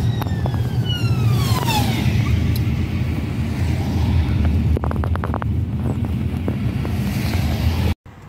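Ambulance siren wailing, its pitch falling over about two seconds, heard over the steady low rumble of road and engine noise inside a moving car.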